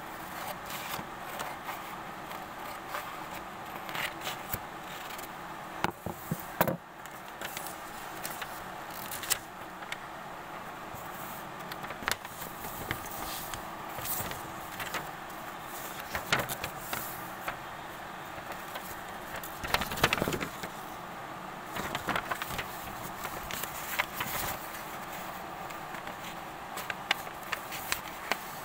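Sheet of paper being handled and folded: scattered short rustles, crackles and taps over a steady background hiss.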